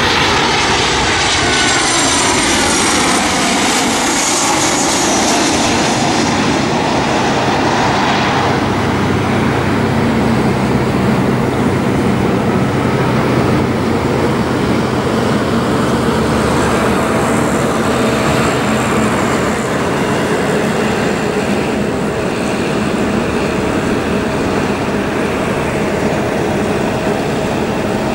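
Boeing 737-800's CFM56-7B turbofan engines passing low overhead on final approach, their whine sweeping down in pitch over the first several seconds as the jet goes by. A steady, loud jet roar follows and runs on as the aircraft lands.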